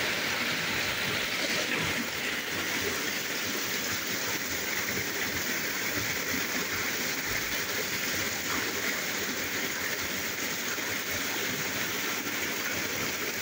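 Heavy rain pouring down steadily: an even, unbroken hiss.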